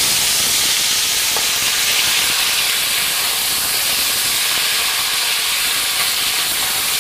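Boneless chicken thighs searing in oil in a hot stainless steel pan, a steady loud sizzle with spatter as the pieces are flipped with tongs. The pan is hot enough for a proper sear.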